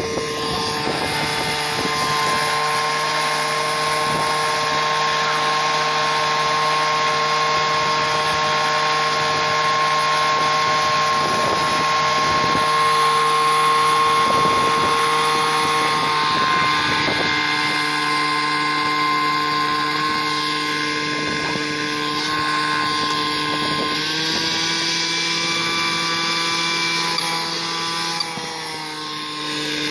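A motor running steadily with a constant hum. It steps slightly up in pitch about 24 seconds in and dips briefly near the end.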